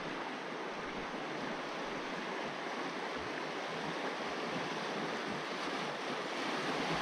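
Fast river current rushing over a shallow rocky riffle, a steady rush of water that grows a little louder toward the end.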